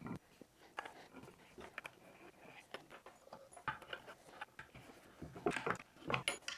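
Faint scattered clicks and light taps of plywood panels and small hardware being handled, with a run of louder taps near the end as a fitting is pressed into a hole in the panel.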